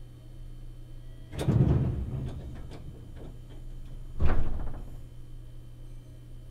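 Inside a Meitetsu 1000 series train car: a steady low hum, broken by two loud clattering knocks about three seconds apart.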